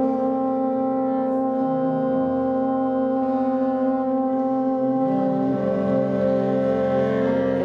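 Alphorn playing long held notes over the chords of a big band's brass section. The harmony changes about five seconds in.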